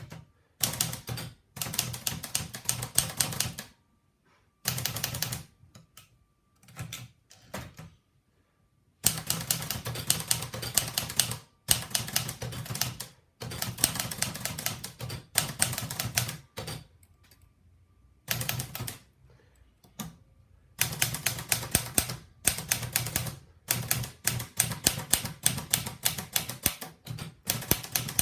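Olivetti Lettera 35 manual portable typewriter being typed on: runs of rapid key strikes broken by short pauses.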